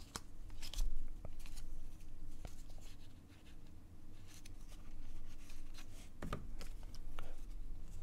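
Stack of cardboard baseball cards being flipped through by hand, card sliding over card: an irregular run of short soft swishes and clicks.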